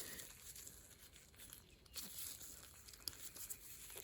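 Faint rustling and a few light clicks as a new spark plug is handled.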